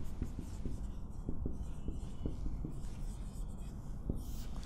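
Marker pen writing on a whiteboard: a run of short, light strokes as letters are drawn.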